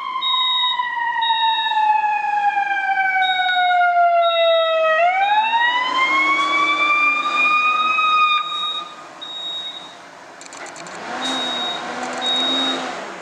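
Fire truck siren winding slowly down in pitch for about five seconds, then rising again and cutting off about eight seconds in. Under it a high electronic beep, the building's fire alarm, repeats about once a second, and near the end there is a louder rush of noise with a low drone.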